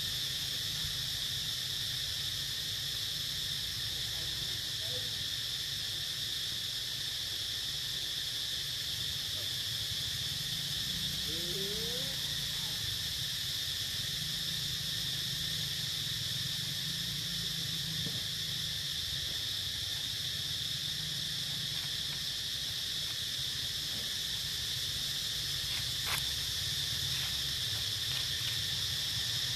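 Steady high-pitched chorus of insects, a constant drone without a break, over a low rumble. A couple of faint short rising squeaks near the middle and a single sharp click near the end.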